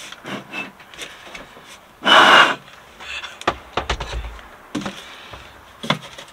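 Hands handling an empty plastic fuel tank: clicks, knocks and low hollow thumps as it is shifted, lifted and tipped to shake out the plastic shavings from a freshly drilled hole, with a short louder rush of noise about two seconds in.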